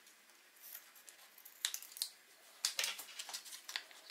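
Scissors snipping open a soft plastic pouch of icing, then the pouch crinkling as it is handled: a few short, sharp crackles and clicks.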